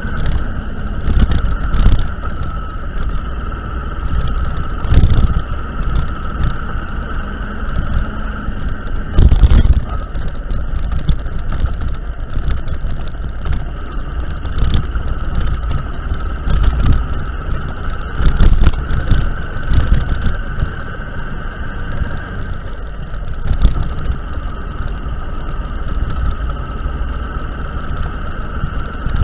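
A vehicle travelling over a rough, broken road: a steady running hum with a constant high whine, under a low rumble, with repeated jolts and rattles from the potholed surface. The biggest jolts come about a third and two-thirds of the way through.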